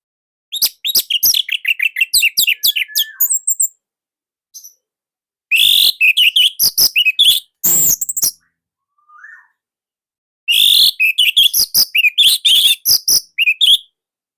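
Orange-headed thrush singing in three loud phrases of rapid, varied high chirps and whistles, each a few seconds long with short pauses between them.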